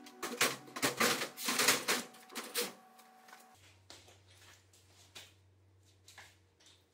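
Rapid knocks and clatter as a small outboard motor is lifted off a metal shelf and handled, busiest in the first three seconds, then a few scattered light knocks. Background music fades out partway through.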